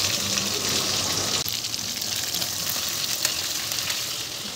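Pieces of rohu fish frying in hot oil in a steel kadhai: a steady sizzle with fine crackles, thinning a little after about a second and a half.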